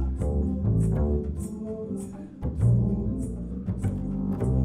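Double bass played pizzicato: deep plucked notes, each ringing and fading, in a steady groove with a sharp click about twice a second.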